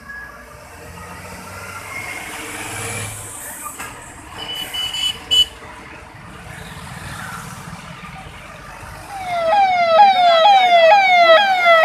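Road traffic rumble with a few short horn beeps about halfway. From about nine seconds in, a loud vehicle siren sounds in quick repeated rising sweeps, about two a second, each falling back sharply.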